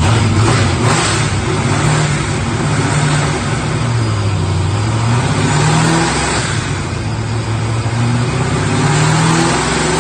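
Supercharged 408 cubic-inch stroker Windsor small-block Ford V8, running loud on a chassis dyno, its engine note rising and falling several times over a steady rushing noise.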